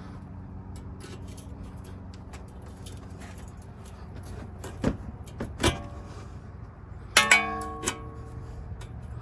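Hand tools clicking against metal as a cotter pin is worked out with pliers: a few scattered clicks, then a short run of ringing metal clinks near the end, over a steady low hum.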